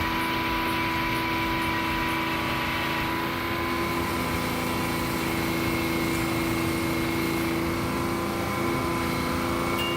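Sawmill machinery running at a steady speed, a constant hum with several held tones and no change in load.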